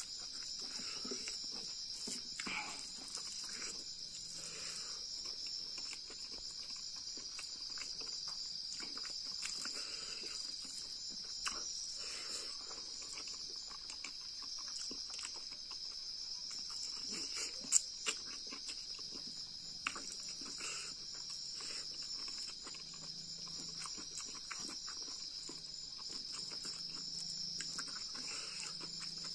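Steady high chorus of night insects, with soft chewing and mouth smacks from eating by hand scattered throughout, and a sharper click about 18 seconds in.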